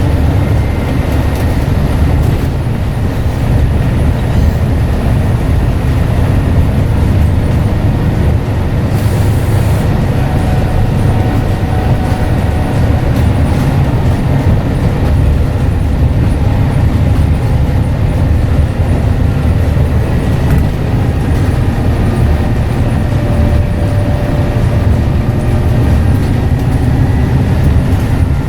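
Scania N94UD double-decker bus running under way, a steady heavy diesel engine and drivetrain rumble with a faint high turbo whistle over it.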